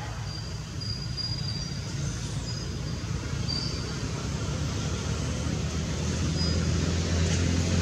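A steady low rumble, like motor traffic, growing a little louder near the end, with a few faint, short high-pitched whistles.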